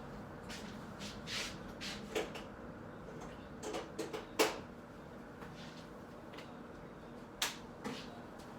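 A few short clicks and small knocks over a quiet room, the sharpest about four and a half seconds in and two more near the end.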